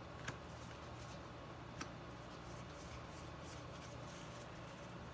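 Baseball trading cards being handled and slid against one another: faint rustling, with two small sharp clicks about a second and a half apart in the first two seconds.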